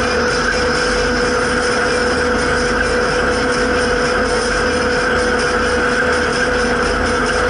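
Zetor 7340's four-cylinder turbo diesel engine running steadily under way, heard inside the tractor cab, with a steady tone over the engine's rumble.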